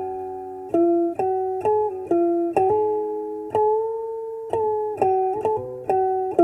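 Background music: a plucked string instrument playing a slow melody, single notes struck about every half second, with one longer held note near the middle.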